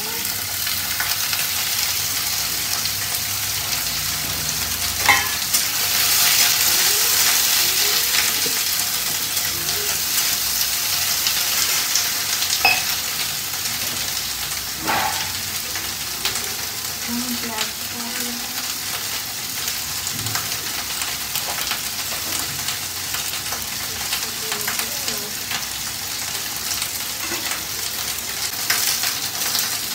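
Chopped vegetables frying in hot oil in a kadhai, a steady sizzle, with a few light clinks.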